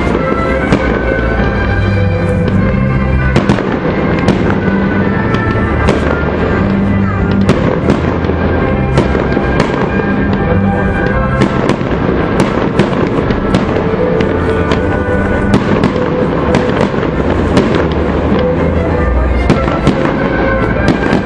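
Fireworks display: aerial shells bursting one after another, many sharp bangs throughout, with music playing alongside.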